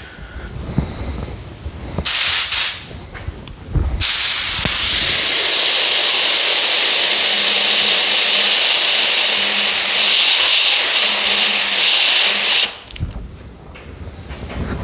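Compressed-air paint spray gun spraying white paint: a short burst of hiss about two seconds in, then a steady hiss for about nine seconds that cuts off sharply when the trigger is released.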